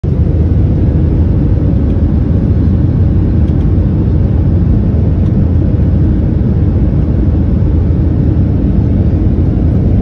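Jet airliner cabin noise: the engines and rushing air give a loud, steady low rumble, heard from inside the passenger cabin.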